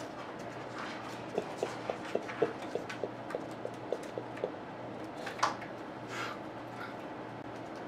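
Pet birds: a quick run of about a dozen light taps or clicks over some three seconds, then two short chirps about a second apart, over a steady low hum.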